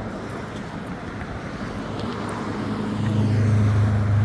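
Road traffic noise, with a motor vehicle's engine hum growing louder as it comes closer over the last second or two.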